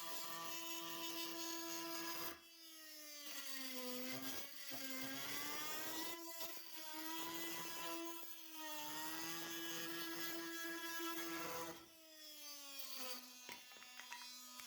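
Milwaukee M18 FUEL brushless oscillating multi-tool with a titanium multi-material blade cutting through a wooden 2x8. It makes a steady buzzing whine whose pitch sags each time the blade bites harder into the wood, then recovers. The sound drops off briefly about two seconds in and again about twelve seconds in.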